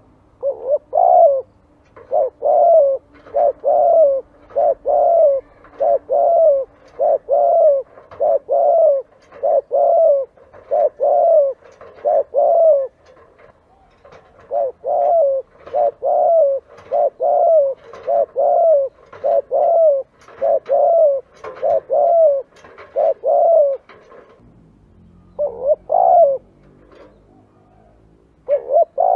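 Spotted dove cooing over and over, about one phrase a second. Each phrase is a short note run into a longer one. The calls break off for about a second roughly halfway and again for about a second and a half near the end, then start again.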